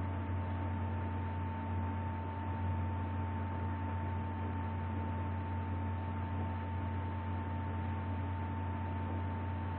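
Steady low electrical hum with a faint constant higher whine and an even hiss: the recording's background noise floor, with no other events.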